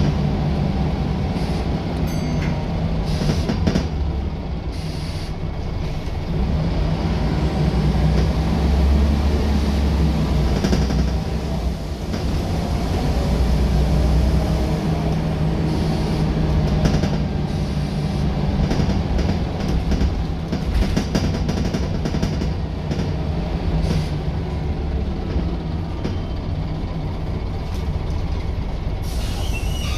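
Scania L94UB Solar bus on the move, heard from inside the saloon: its nine-litre five-cylinder diesel runs under load with the engine note rising and falling, over road noise and frequent small knocks and rattles from the bodywork and fittings.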